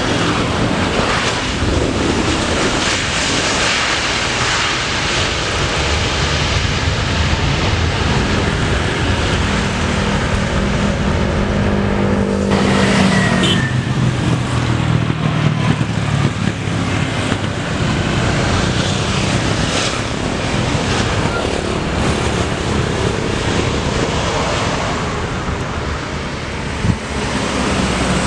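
Steady roar of a Boeing airliner's jet engines on landing approach, mixed with road traffic noise. Around the middle an engine's pitch shifts up and then down.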